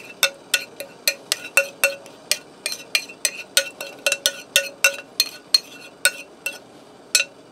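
Metal spoon scraping and clinking against a ceramic mixing bowl as a thick, creamy soup mixture is scraped out, about three short ringing clinks a second. The clinks thin out near the end.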